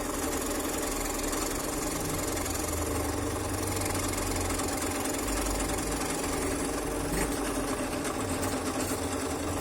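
Electric scroll saw running steadily, its fine blade reciprocating rapidly as it cuts through a thin wooden workpiece.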